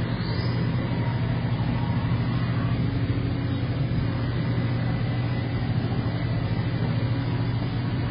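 1998 Haas VF-0E CNC vertical mill running with a steady, even hum and a few faint steady whines above it.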